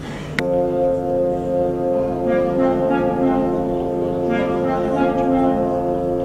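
Orchestra with prominent brass playing sustained, held chords, coming in with a sudden loud attack about half a second in.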